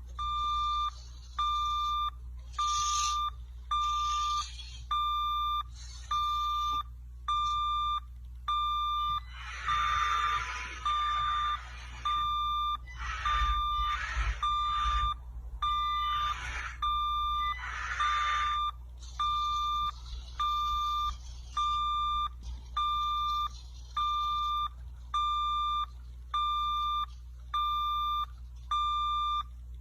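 Construction-vehicle reversing alarm sounding a steady electronic beep over and over, about once every 1.2 seconds. Bursts of rustling noise join in between about 9 and 19 seconds.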